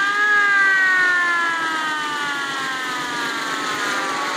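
Mechanical siren of a vintage fire engine winding down. Its wail peaks just after the start, then falls slowly and steadily in pitch.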